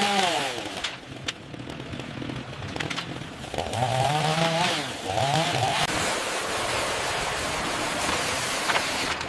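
A small power-tool motor whose pitch drops, then swings up and down about halfway through, followed by a steady harsh cutting noise, with a few sharp knocks.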